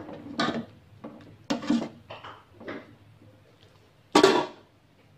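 Metal ladle clinking and scraping against an aluminium cooking pot as soup is ladled out, a handful of short knocks spread over a few seconds, with one louder clank about four seconds in.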